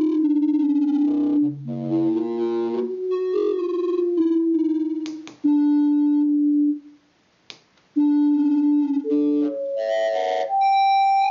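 Synthesized tones from a Raspberry Pi running Scratch, played through a small speaker as a homemade theremin: the pitch steps up and down as the PicoBoard's light sensor is shaded and uncovered. The notes break off for about a second near the middle, with a couple of sharp clicks.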